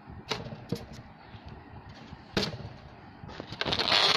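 Handling noise from the recording device: a few sharp knocks, then, from about three seconds in, dense crackling and rubbing as it is picked up and moved.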